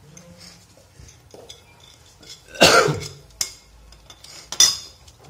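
Hands handling a small threaded pipe fitting and a roll of thread seal tape, with faint clicks, and two short loud noisy bursts about two seconds apart, the first the louder.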